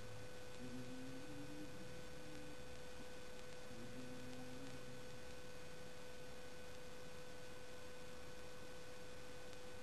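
A steady high-pitched electrical hum, one held tone with fainter overtones, over a light hiss. A few faint, brief lower tones come and go in the first half.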